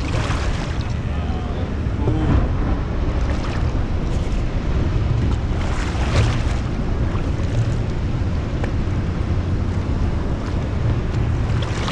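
Wind rumbling on the microphone aboard a boat on open ocean. Water sloshes against the hull, swelling louder a few times.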